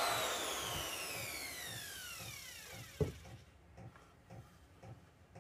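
Vevor 5120 plunge router's motor winding down after being switched off, its whine falling steadily in pitch and fading over about three seconds. A single sharp knock comes about three seconds in, followed by faint ticking about twice a second.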